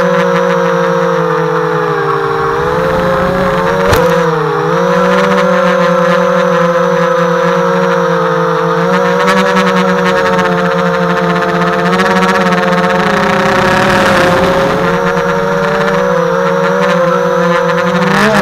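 HobbyKing FPV250 quadcopter's brushless motors and propellers whining steadily in flight, the pitch wavering up and down with the throttle. There is a brief dip in pitch with a click about four seconds in.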